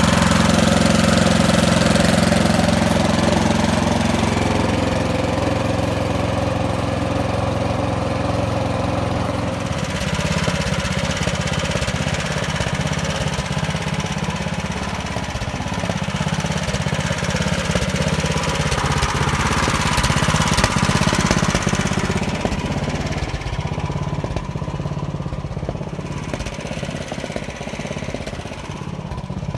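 Gasoline snowblower engine running steadily, its sound turning rougher and less even about ten seconds in.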